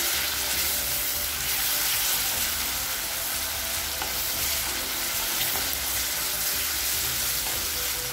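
Sliced onions, green chillies and ginger-garlic paste sizzling steadily in hot oil in an iron kadai, stirred with a wooden spatula.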